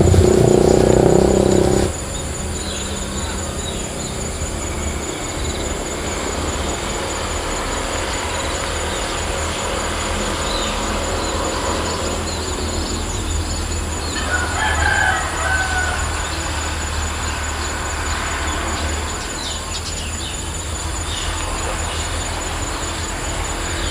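A rooster crowing once about halfway through, over a steady outdoor background with faint high chirps of small birds. A loud low rumble fills the first two seconds and cuts off suddenly.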